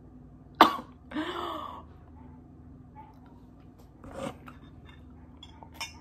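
A woman coughing on a noodle caught in her throat: one sharp, loud cough about half a second in, a longer throat-clearing cough right after, and a softer one about four seconds in.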